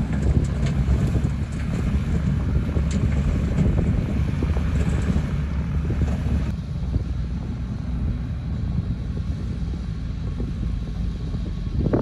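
Low, steady rumble of a heavy diesel engine working at a dirt-road earthworks site, with wind noise on the microphone. The higher hiss drops away abruptly about halfway through.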